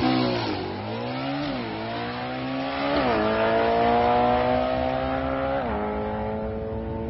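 Naturally aspirated 311-cubic-inch small-block Ford V8 of a Foxbody Mustang drag car at full throttle down the strip. The revs climb and drop sharply at three upshifts of its four-speed manual transmission, about a second and a half in, about three seconds in and near six seconds in.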